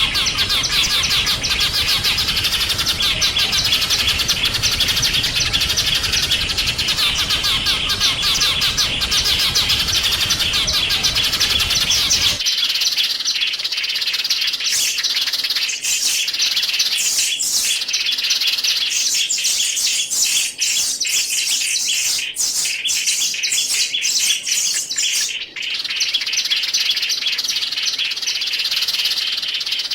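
Small songbirds chirping in dense, rapid high twitters. About twelve seconds in, the sound cuts abruptly to another recording of sharper, more separate high chirps with less background noise.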